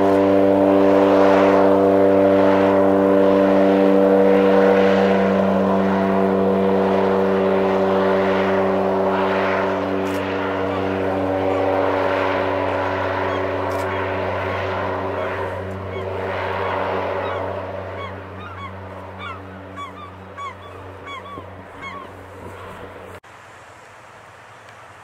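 A de Havilland Canada DHC-3 Otter floatplane on its takeoff run: the single turboprop engine and propeller make a loud, steady pitched drone over the hiss of spray, and the sound fades slowly as the plane moves away. Birds chirp many times over the last several seconds. Near the end the sound cuts abruptly to a quieter, more distant aircraft drone.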